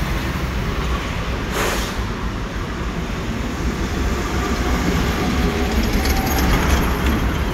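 Red articulated city tram running past close by on street rails: a steady low rumble with wheel and rail noise, growing louder near the end as the cars go by. A short hiss comes about one and a half seconds in.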